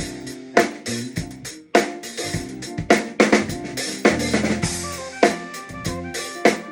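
A drum kit played during a sound check: snare and bass-drum hits with crashing cymbals ringing on after the accents, about one to two heavy hits a second.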